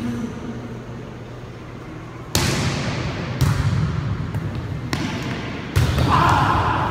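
Volleyball struck four times in a rally, each hit a sharp smack that echoes around the gymnasium.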